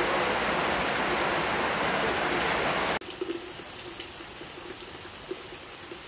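Heavy rain falling: a loud steady hiss that cuts off abruptly about three seconds in and gives way to quieter rainfall, with drops splashing and dripping onto leaves and pots.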